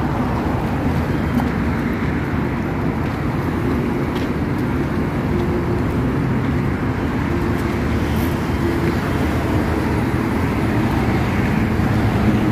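Steady street traffic noise: an even, low rumble of car engines and tyres.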